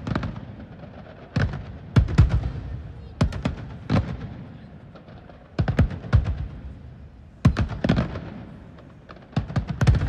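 Aerial firework shells bursting in quick succession: sharp bangs, often two or three close together, each trailing off in a low rumbling echo, with a new burst about every second.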